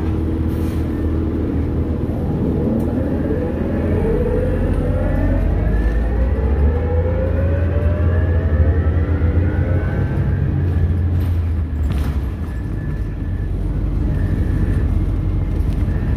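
Orion VII Next-Gen transit bus pulling away from a stop, heard from inside: a whine climbs steadily in pitch for several seconds as it accelerates, over a low rumble that grows louder about four seconds in.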